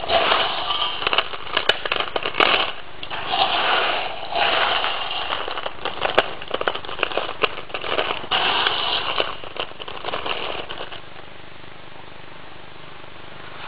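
Cracked almond shells and kernels rattling and crackling in a bin as a gloved hand stirs and scoops through them, a dense run of small clicks. It dies down to a quieter, steadier sound about eleven seconds in.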